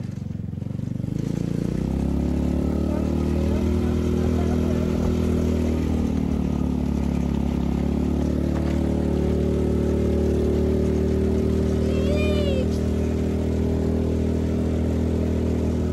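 Engine of an open side-by-side utility vehicle running while it drives, its pitch climbing over the first two seconds as it speeds up, then holding steady.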